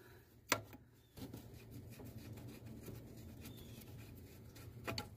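Faint rubbing and scraping of hands working at the transmission cooler line fitting on a radiator, with two sharp clicks, one about half a second in and one near the end.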